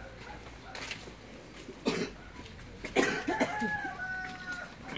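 A person coughing: a sharp cough about two seconds in and a few more around three seconds.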